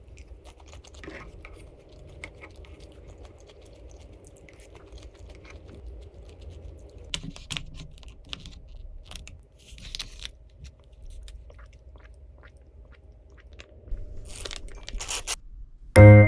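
Faint, scattered small clicks and crunches over a low steady hum, with a louder cluster of clicks just before the end. Piano music starts at the very end.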